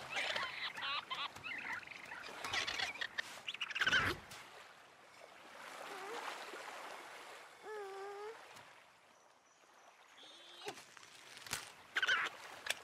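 A toddler's short wordless babbles and coos, with small waves lapping at the shore.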